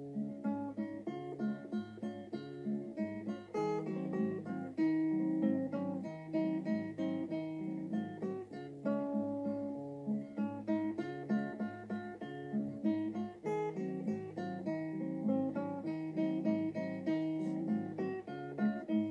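Acoustic guitar music: a plucked tune over a bass line that steps back and forth between two low notes.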